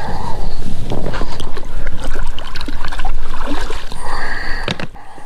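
Swim fins kicking and splashing through shallow water as a pontoon kickboat moves off the shore, with a scatter of clicks and snaps and a low rumble that eases near the end.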